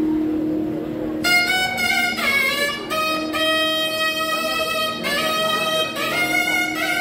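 Nagaswaram, the South Indian double-reed wind instrument, playing a Carnatic melody over a steady drone. It comes in about a second in, with notes that slide and bend between pitches.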